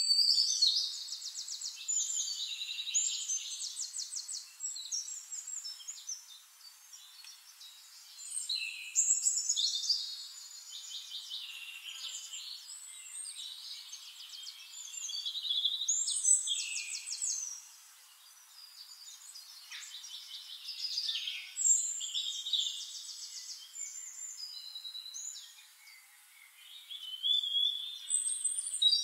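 Songbird singing: phrases of rapid, high trills and warbles, each a second or two long, returning every five to seven seconds, with fainter twittering between them.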